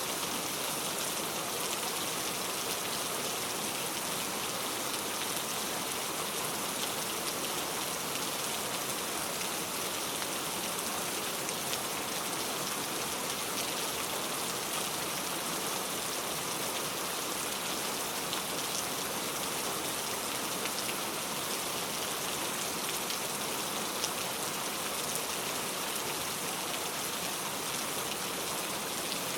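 Heavy rain falling steadily on a road, without thunder: an even, unbroken hiss dense with small drop impacts.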